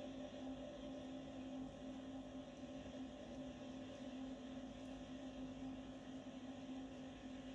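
A faint, steady hum with one constant low tone and a fainter higher tone above it, over a light hiss. It does not change.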